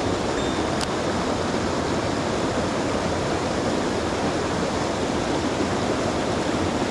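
Mountain stream water rushing steadily, with one faint click about a second in.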